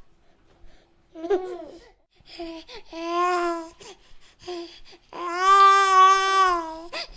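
A baby cooing and babbling in short high-pitched bursts, then one long drawn-out coo near the end, the loudest sound.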